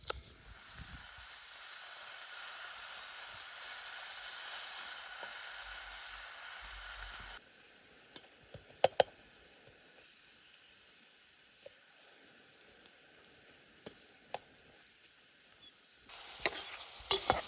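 Food frying in hot oil in a pan, sizzling steadily, then cutting off abruptly about seven seconds in. A quieter stretch follows with a few sharp clicks of a utensil against the pan. The sizzling starts again near the end, with more clicks.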